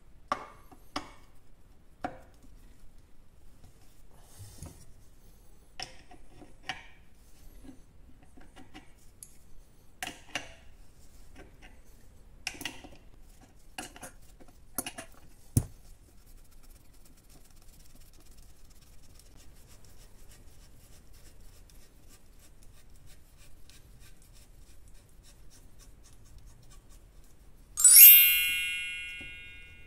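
Screwdriver driving a wood screw into a wooden block, turned by hand and with an open-end wrench: scattered clicks, creaks and scrapes as the screw bites into the wood, with quiet gaps. About two seconds before the end a loud ringing chime sounds and dies away.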